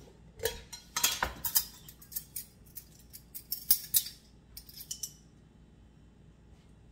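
A ring of metal measuring spoons clinking and rattling against each other and a small glass jar while salt is measured out. It is a quick, irregular run of sharp clinks that stops about five seconds in.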